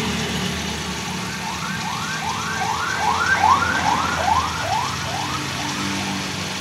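A car alarm sounding a quick run of about ten rising whoops, swelling then fading, over the steady low hum of an idling car engine.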